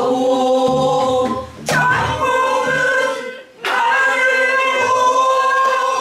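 A group of men and women singing a Namdo folk song together, in long held notes that bend slightly in pitch. There are three phrases, with short breaks for breath, about a third and about halfway through.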